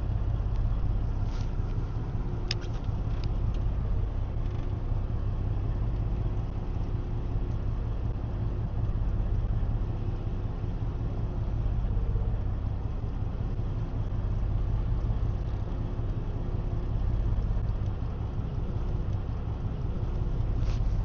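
Fishing charter boat's engine running steadily while under way, a low drone with the rush of wind and water over it.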